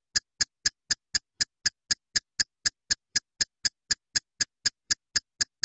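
A tick sound effect: short, identical, evenly spaced ticks, about four a second, with silence between them.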